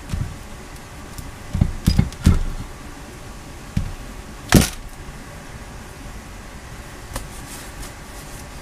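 Scattered knocks and clunks from handling the metal parts of a machinist vise under restoration, with one louder, longer clank about four and a half seconds in.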